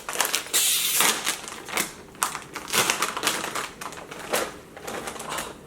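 Crunchy hot cheese puffs being bitten and chewed close to the microphone: a quick run of crisp crunches, then steadier crunching every few tenths of a second.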